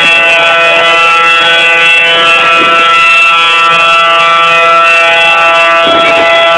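Outdoor tornado warning sirens sounding a loud, steady tone that holds its pitch throughout, signalling a tornado warning.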